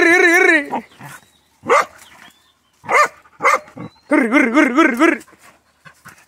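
Hunting dogs barking and yapping as they bite at a cornered opossum. A long, wavering growl-whine is just ending at the start, sharp single barks follow, and a second wavering growl-whine comes about four seconds in.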